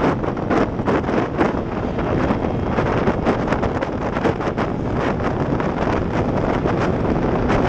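Heavy wind buffeting the microphone of a camera riding on a Yamaha Mio Sporty scooter at speed. A constant rush is broken by frequent gusts, with the scooter's small single-cylinder engine running underneath.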